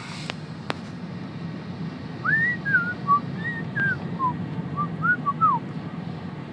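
A person whistling a short run of about a dozen quick rising and falling notes, over the steady low drone of a moving car's cabin.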